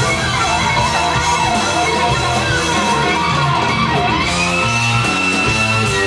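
Rock music with guitar and a voice holding and bending notes, played over Dynaudio Excite X14 hi-fi speakers.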